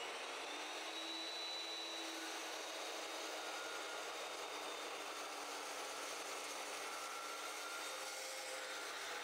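Evolution EVOMAX chop saw with a 14-inch 80-tooth carbide-tipped metal-cutting blade running at full speed, miter-cutting through quarter-inch-wall square steel tubing. A steady cutting noise with a held whine, even throughout.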